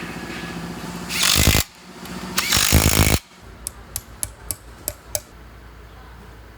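Two loud bursts from a power tool, the second one longer, then a run of about eight sharp clicks. A steady hum runs before the first burst.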